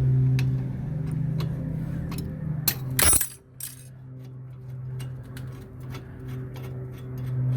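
A sharp metallic clank about three seconds in, with a brief ringing clink after it, as steel brake parts or tools are handled. Small clicks and a steady low hum run underneath.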